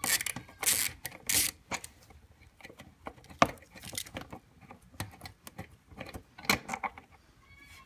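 Irregular metallic clicks and clinks of hand tools and loose bolts being handled while the belt cover's 8mm bolts are undone, with one sharper click a little before halfway.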